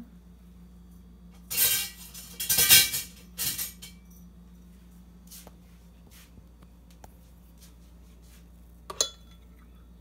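Metal cutlery clattering in three short bursts as spoons are rummaged through, then a single sharp clink of a metal spoon against the glass blender jar near the end.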